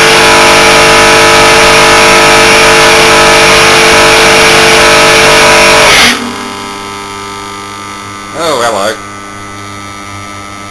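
Cut-open hermetic refrigerant compressor running with its oil drained: a very loud, harsh running noise for about six seconds that cuts off suddenly as the compressor seizes, leaving the stalled motor's steady electrical hum. The owner thinks the main bearings seized up.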